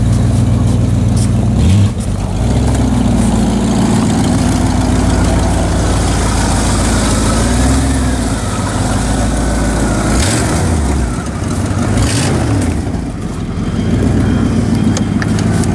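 Ford pickup truck's engine running, a steady low note whose pitch shifts a few times as the revs change, with a brief dip and rise near the end.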